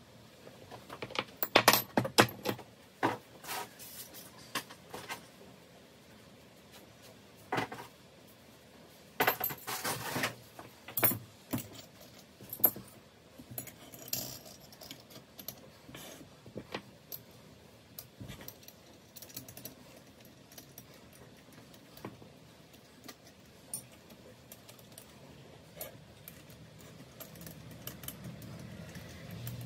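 Turbocharger parts and small metal hand tools clinking and jangling against each other on a workbench, in scattered clusters of sharp clicks, busiest in the first dozen seconds and then only occasional.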